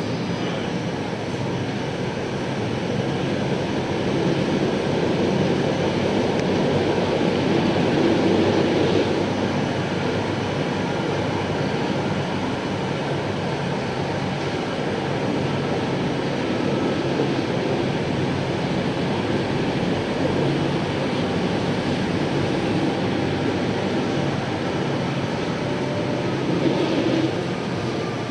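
Tatra T6A5 tram running along the track: a steady rumble of wheels on rails with motor hum. It swells louder about a third of the way in and again briefly near the end.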